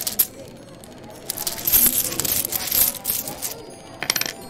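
Small metal pieces jingling and clinking, like coins: two sharp clicks at the start, a dense shaken run lasting about two seconds, and a short burst near the end, over a low steady background murmur.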